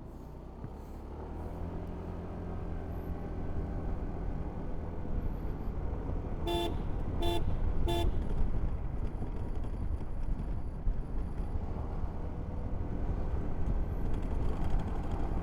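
Motorcycle riding along, its low engine and road rumble growing louder over the first few seconds as it picks up speed. Three short horn toots come about six and a half to eight seconds in.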